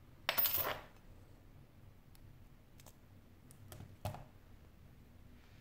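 Small phone display parts being handled on a desk: a short rustling scrape about half a second long near the start, then a few light clicks and taps from parts and steel tweezers, the sharpest about four seconds in.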